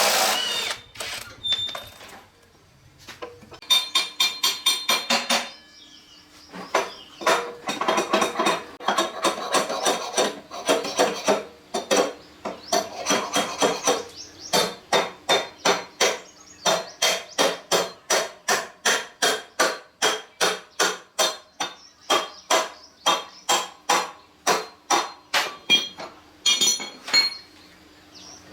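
Hammer striking metal in a long series of rhythmic blows, about two to three a second, each with a ringing metallic tone.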